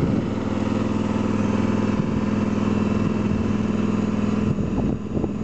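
Engine of a Brownie hydraulic orchard ladder running steadily as the platform is raised, its sound dropping off about four and a half seconds in.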